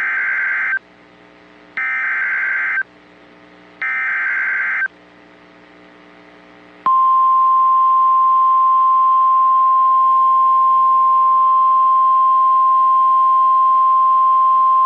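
NOAA Weather Radio alert signal: three roughly one-second bursts of warbling SAME digital header data, about a second apart, then the steady single-pitch 1050 Hz warning alarm tone, which starts about seven seconds in and holds. Together they signal that a new warning is about to be broadcast.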